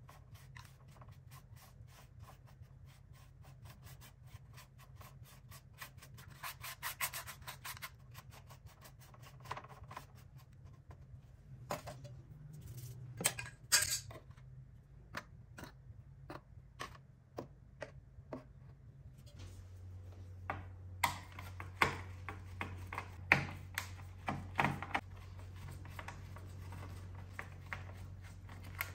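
Small brush scrubbing caked dust off a keyboard speaker's cone and surround, many quick rubbing strokes. Later come sharper clicks and taps of metal tools, tweezers and a screwdriver, against the speaker and the plastic case.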